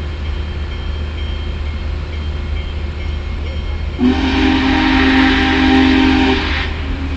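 Big Boy steam locomotive's whistle blowing one long blast about four seconds in: a chord of several steady tones with a hiss of steam. A steady low rumble runs beneath it.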